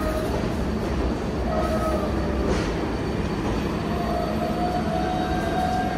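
An R188 subway train moving on the rails. There is a steady low rumble, and thin wheel-squeal tones come and go above it, one held and rising slightly near the end.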